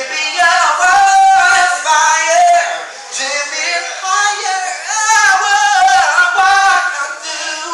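A man singing unaccompanied into a microphone, held notes that slide up and down in pitch.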